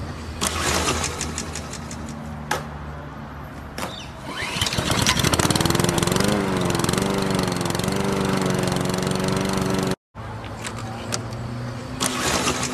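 Lawn mower engine being pull-started: a few sharp pulls on the starter cord, then about four seconds in the engine catches and runs, its pitch wavering. It cuts out abruptly near ten seconds, and the pull-start sounds begin again near the end.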